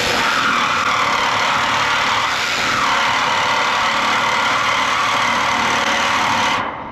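Electric reciprocating saw with a fresh blade cutting the steel wall of a shipping container: a loud, steady rasping cut that starts at once and stops suddenly shortly before the end. The blade is running along a weld, which they take to be dulling its teeth.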